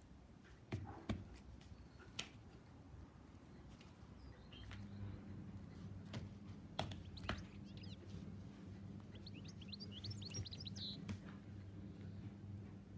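A young lynx plays with a string toy on a tarp, making scattered soft knocks and rustles. A steady low hum runs under most of it, and a quick run of high chirps comes about nine to eleven seconds in.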